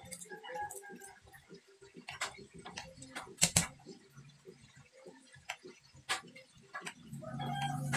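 Kitchen knife knocking and clicking on a cutting board as vegetables are sliced by hand: irregular strokes, with two louder knocks about three and a half seconds in.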